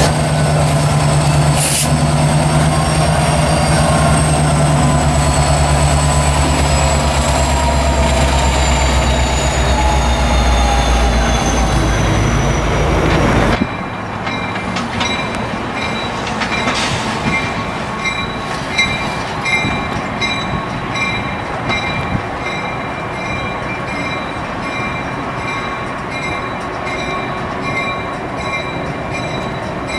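A diesel locomotive rolls past with its engine running loud and a high squeal slowly falling in pitch, and both cut off suddenly about fourteen seconds in. A quieter rumble follows, with a short high ringing tone repeating at an even rhythm.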